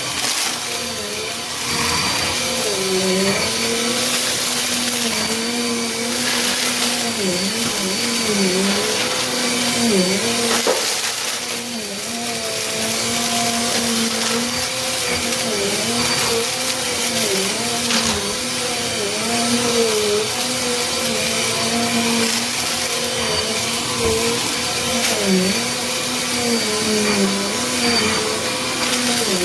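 Small Bissell upright vacuum cleaner running at a steady motor pitch that sags briefly again and again as it works, with scattered crackles of crunchy debris being sucked up.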